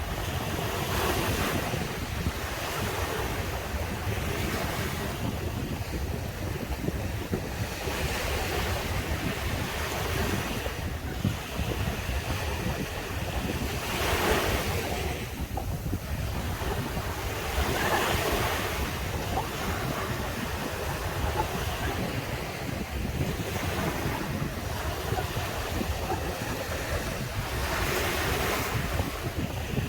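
Ocean waves breaking and washing up on a beach, swelling and easing every few seconds. A steady low wind rumble sits on the microphone underneath.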